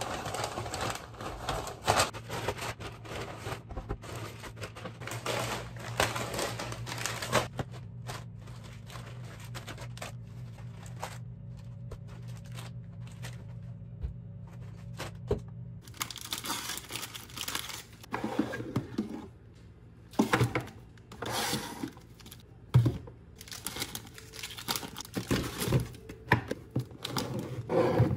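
Rustling and crinkling of a paper grocery bag and plastic snack packets being handled and unpacked, with occasional sharp knocks as items are set down on a counter and a cupboard shelf. A low steady hum in the background stops about halfway through.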